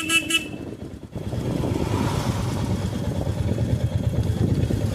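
A horn beeping in quick short pulses, which stops about half a second in; then a Royal Enfield motorcycle's engine running steadily on a downhill road, where engine braking is being used.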